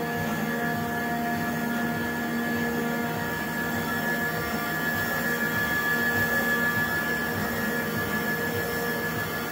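Steady mechanical drone of a Shiki FX15 label printing press in operation: an even whir with several held tones and no breaks.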